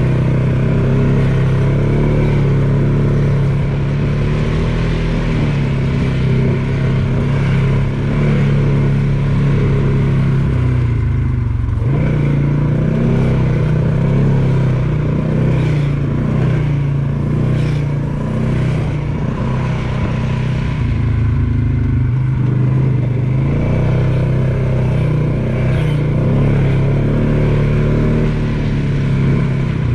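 ATV engine running steadily under way on a trail ride, its pitch dipping briefly a few times as the throttle varies.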